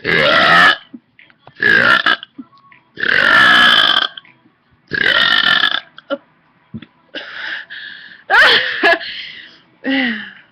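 A person's deliberate burps on command: a string of about seven loud belches, several with a pitch that slides downward.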